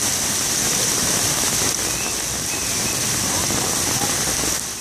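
Torrential rain pouring down onto a paved street and pavement, a steady, dense rush of falling water.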